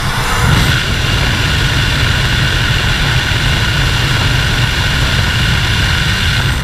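Loud, steady wind rush blasting the microphone in the airstream at a jump plane's open door, mixed with the drone of the aircraft's propeller engine. The rush grows stronger about half a second in.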